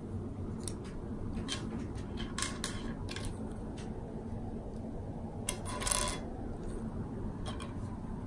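Small plastic candy charms being picked up and set onto slime in a plastic tub: scattered light clicks and taps, with a slightly louder half-second scrape about six seconds in.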